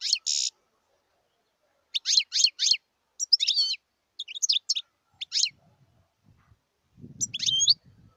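European goldfinch singing in short phrases of rapid, sharp, high twittering notes, with pauses of up to a second and a half between phrases. A low rumble comes in near the end.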